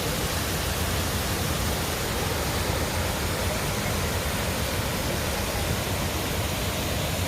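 Steady rushing roar of the Passaic River's Great Falls, a large waterfall, an even wash of noise with no breaks.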